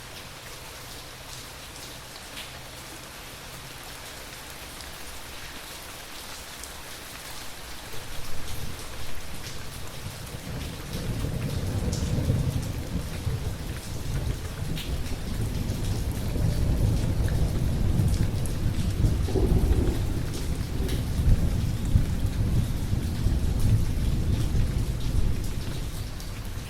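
Steady rain falling, with a long, low roll of thunder that builds about eight seconds in, stays loudest through the middle and later part, and eases off near the end.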